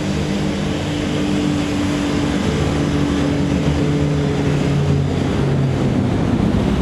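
WaterCar Panther amphibious jeep's V6 engine running steadily at speed on the water, over the rush of spray and wind.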